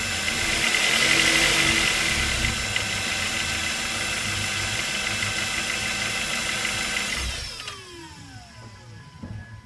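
Ford Focus 2.0 Duratec inline-four running with a knock from the bottom of the engine, around the crankshaft pulley and air-conditioning compressor. About seven seconds in, the running sound drops away sharply with several falling tones.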